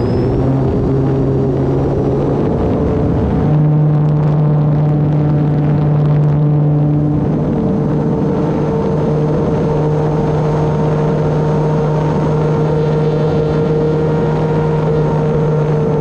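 The electric brushless motor and propeller of an E-flite Turbo Timber Evolution RC plane, making a steady, loud, droning hum in flight. A rougher low rumble underneath drops away about three and a half seconds in, leaving an even drone.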